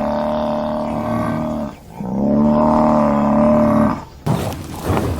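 Buffalo bellowing: two long, low, drawn-out calls one after the other, then a rougher, noisier call near the end.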